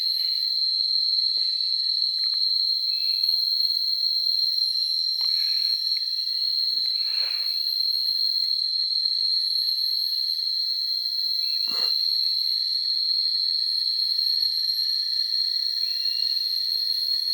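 Steady, high-pitched chorus of insects buzzing without a break, with a few faint knocks in the background.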